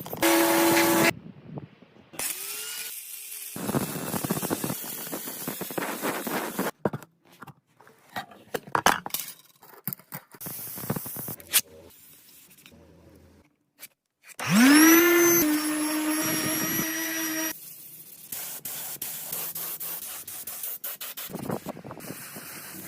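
A run of cut-together workshop sounds: scraping and rubbing, sharp knocks, and a power tool spinning up to a steady high whine about fifteen seconds in, running for about three seconds before it cuts off.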